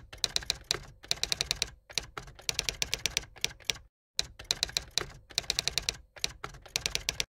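Typewriter keys clacking in quick runs of strokes, a typing sound effect that goes with title lettering appearing letter by letter. There is a short silence about four seconds in.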